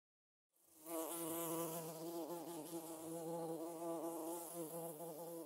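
Bee buzzing sound effect: a steady, slightly wavering buzz that fades in about half a second in.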